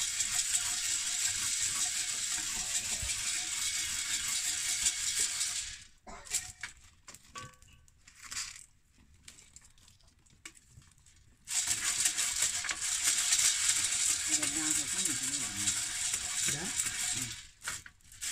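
Maize kernels popping and rattling inside a covered pot shaken over a wood fire, a dense crackle of many small pops. About six seconds in it drops away to a few scattered pops for about five seconds, then the crackle resumes.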